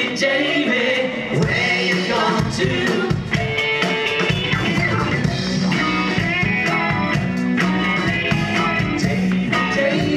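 Live rock band playing a song, a man singing the lead vocal over electric bass guitar and keyboards with a steady beat.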